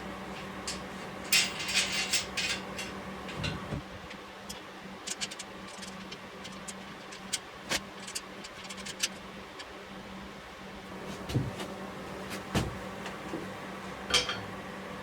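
Scattered clinks, clanks and knocks of tools and metal parts being handled at a workbench, over a steady low hum. The loudest cluster of ringing clanks comes about a second and a half in.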